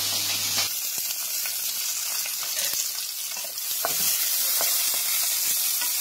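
Green chillies frying in hot oil in a kadai: a steady sizzle with a few faint clicks.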